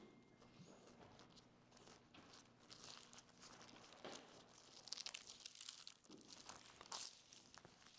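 Faint rustling of thin Bible pages being turned, with louder rustles about five and seven seconds in.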